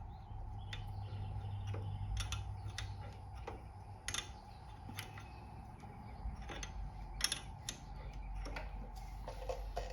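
Irregular light metallic clicks and taps of wrenches working a Harley-Davidson clutch cable adjuster and its lock nut, setting the cable's free play, over a steady low hum.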